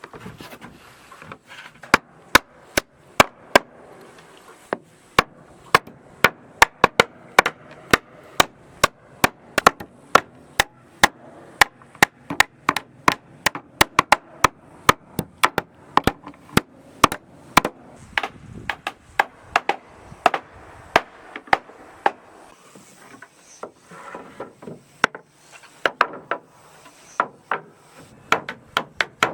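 A hammer striking wood again and again while wooden floor planks are being fitted: sharp, separate blows about two a second, with a couple of brief pauses.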